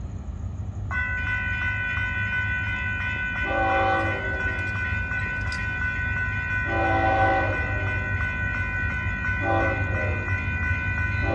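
Road-crossing warning bell ringing steadily from about a second in, while the approaching FEC freight locomotive's horn sounds two long blasts and a short one, the long-long-short-long grade-crossing signal, over a low rumble.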